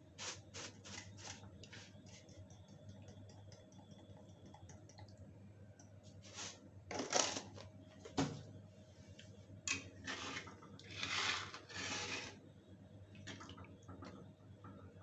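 Soybean and potato curry simmering in a kadhai: small bubbles pop in quick crackles, with several louder, longer bursts about halfway through. A steady low hum runs underneath.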